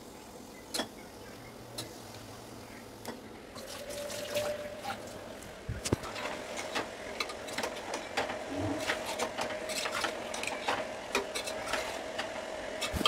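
Raw chicken pieces sizzling and crackling in hot oil and ground green masala in a stainless steel saucepan, the frying growing steadier about three and a half seconds in. A metal slotted spoon knocks and scrapes against the pan as the chicken is stirred, with one sharper knock about six seconds in.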